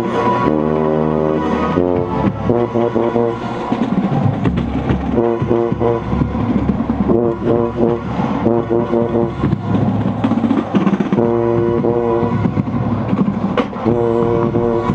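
Drum corps brass line playing loud, with a tuba close to the microphone putting heavy low notes underneath. Held chords give way about four seconds in to short, punched rhythmic notes, and the held chords return near the end.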